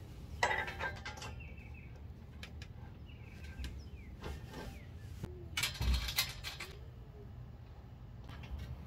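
Metal clicks and rattles from side-step mounting bolts and bracket hardware being worked by hand under a pickup truck, in two short clusters about half a second in and around six seconds, with a few single clicks between, over a low steady hum. Faint bird chirps sound now and then.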